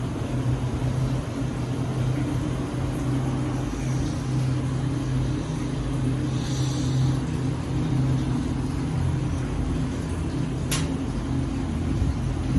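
Supercharged 427 ci LS V8 with a 2.9 L Whipple blower idling steadily, with a single sharp click near the end.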